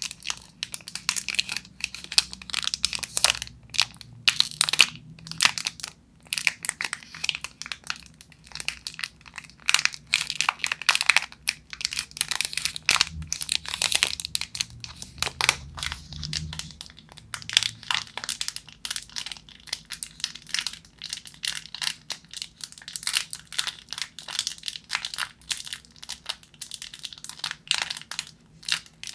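Plastic and foil-lined candy bar wrappers crinkling and crackling as hands squeeze, twist, pull open and crumple them. A dense, irregular stream of sharp crackles with short pauses.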